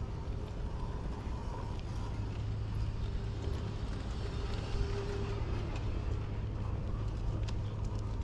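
Footsteps of a person walking at a steady pace on a hard path, about two steps a second, over a constant low rumble of city traffic.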